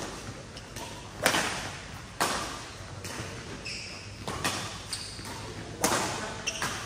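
Badminton rally: rackets striking the shuttlecock in sharp, echoing hits, the loudest about a second in, about two seconds in and near six seconds in, with smaller hits between.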